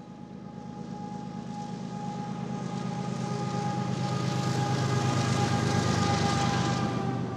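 Diesel locomotive at the head of a double-stack container train approaching and passing close by: the low engine hum and a steady high whine grow louder to a peak about six seconds in, with rising wheel and rail noise, and drop off near the end as the locomotive goes by.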